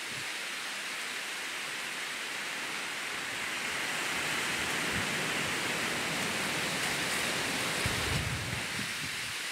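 Steady hiss of rain falling on the trees and grass, swelling slightly midway, with a brief low thump about eight seconds in.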